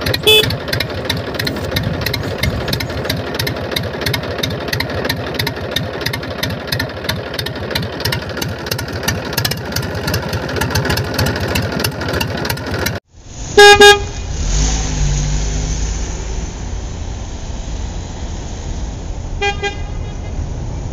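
Tractor engine sound, running with a fast even chug, with a short horn toot just after the start. About 13 seconds in it cuts off and switches to a deeper truck engine rumble with a loud horn honk, and a short toot near the end.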